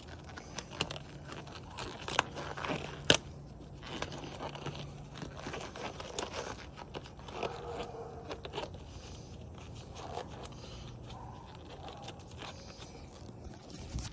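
Metal tools clinking and scraping while working under a car at the oil drain plug, with scattered sharp clicks and knocks, the loudest about two and three seconds in.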